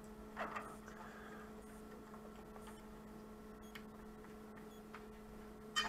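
Faint steady electrical hum with a few light clicks from handling.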